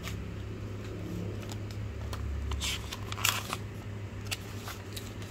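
Sheets of drawing paper being handled and shuffled: short rustles and light clicks, the loudest rustles about two and a half and three seconds in, over a steady low hum.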